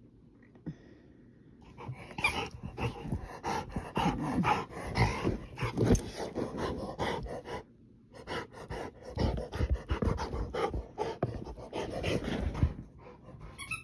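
Rottweiler panting with a rubber ball toy in her mouth, in two stretches of quick breaths broken by a short pause around the middle.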